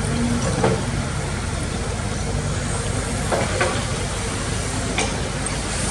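Excavator's diesel engine running steadily under load, with a few sharp knocks and clatters about half a second in, around three and a half seconds, and near the end.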